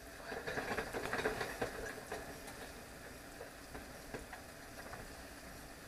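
Mikate (Congolese dough beignets) frying in hot oil: a sizzle with crackling that swells over the first two seconds, then settles to faint scattered pops.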